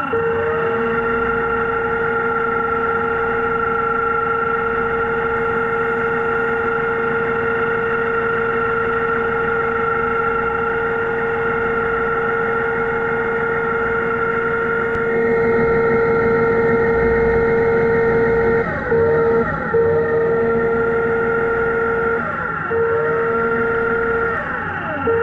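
Electric motor of an underwater scooter (diver propulsion vehicle) running with a steady whine. In the last third its pitch dips and comes back up several times as the speed is eased off and opened up again.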